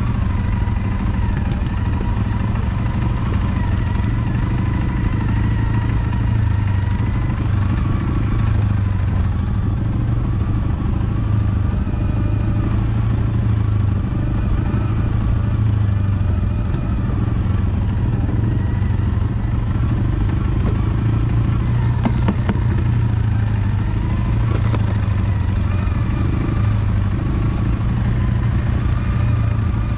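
CFMOTO 625 ATV engine running steadily at low speed while crawling along a dirt forest track, with short high squeaks now and then.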